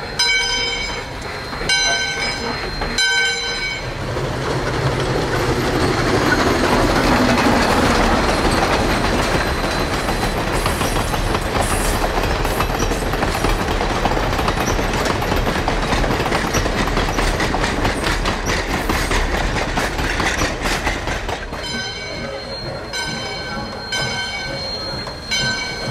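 Valley Railroad No. 40 steam locomotive sounding its whistle in several short blasts, then the steady rumble and wheel clatter of its passenger train rolling by; the whistle sounds again in short blasts near the end.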